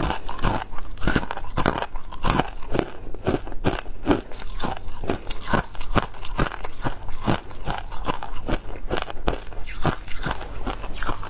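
Shaved ice being chewed, a steady run of crisp crunches about three or four a second.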